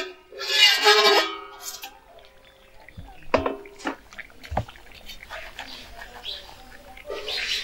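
A metal lid scraping off a metal karahi with a ringing screech, then a metal ladle clanking and knocking against the pan a few times.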